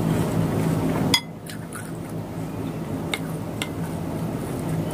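Wooden spoon clinking against a ceramic soup bowl, two short light clinks a little past the middle. A steady low hum runs underneath and drops sharply after a click about a second in.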